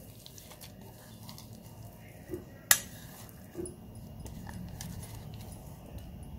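Fingers scraping coarse, dry-ground chana dal paste out of a stainless steel mixer-grinder jar into a glass bowl: soft scraping and rustling with a few light knocks, and one sharp clink a little before halfway through.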